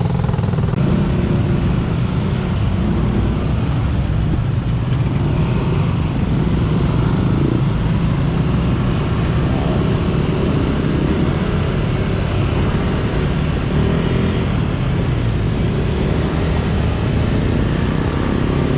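Honda Click 125i scooter running at low speed in congested road traffic, a steady rumble with the engines of surrounding trucks and cars mixed in.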